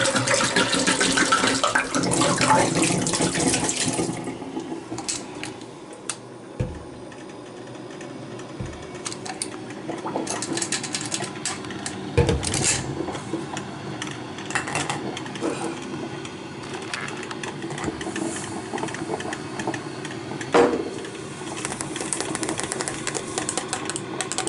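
Water running or pouring for about four seconds, then a quieter stretch of scattered clicks and knocks from handling kitchenware, with a louder knock about twelve seconds in and another near twenty seconds.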